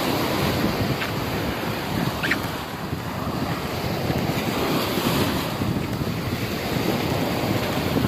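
Small sea waves breaking and washing up a sandy beach in a steady foaming wash that swells and eases, with wind buffeting the microphone.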